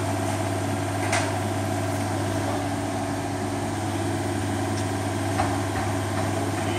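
Mini excavator's diesel engine idling steadily, with two faint short knocks, one about a second in and one later on.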